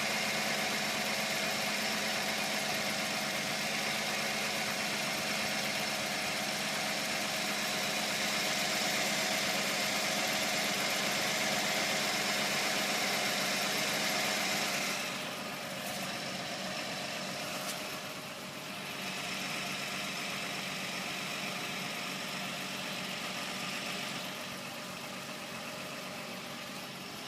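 Infiniti G35's 3.5-litre V6 idling, with a steady chirping, buzzing, rattling noise from the engine of unknown cause. The sound drops somewhat in level about halfway through and again near the end.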